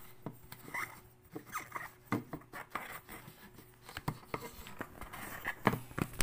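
Handling noise: irregular small clicks, taps and rustles, as of hands working a small electric coffee grinder and its lid or the phone held over it, with a few sharper knocks near the end.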